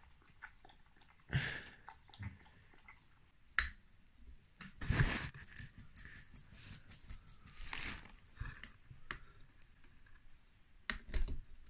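Scattered clicks, taps and scrapes of hands working metal engine parts, the piston pin being pushed through the little-end bearings of a Honda QR50's two-stroke top end with the cylinder barrel in hand. The loudest scrape comes about halfway through.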